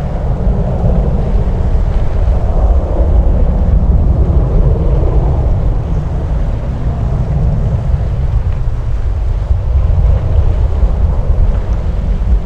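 Loud low rumble of jet aircraft engines, swelling and easing slowly, mixed with wind buffeting the microphone.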